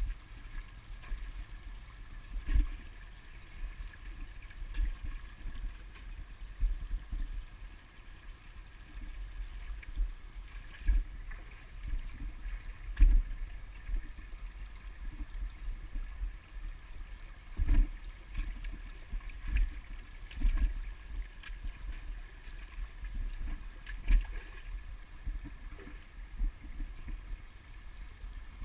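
Footsteps on the rocks and gravel of a shallow creek bed, heard as irregular thuds with a few sharper knocks, over a small stream trickling across stones.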